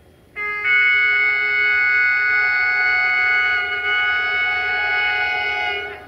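Air horn of a CFR GM Class 65 diesel-electric locomotive sounded in one long blast of about five seconds: a loud chord of several tones that starts sharply and dies away just before the end.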